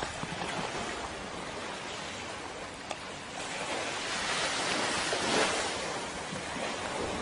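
Sea surf washing on the shore: a steady hiss that swells and fades, loudest a little past the middle.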